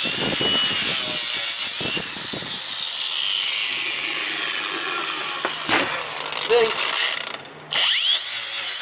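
Cordless grinder running at high speed against a lawnmower cylinder head, scraping off caked carbon deposits. It cuts out briefly near the end and spins back up with a rising whine.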